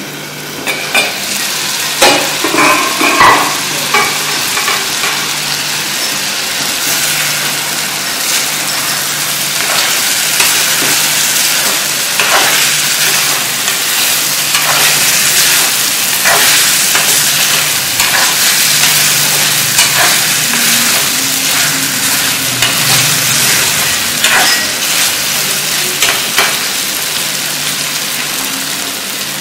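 Chicken pieces with onions and green chillies sizzling in a hot kadai while a steel ladle stirs and scrapes them. Scattered clinks of the ladle against the pan, a few louder ones in the first few seconds.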